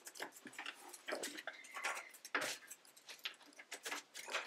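Irregular clicks and rustles of hands working flat rattan reed on a basket rim, with clips clicking on as the rim row is clipped in place.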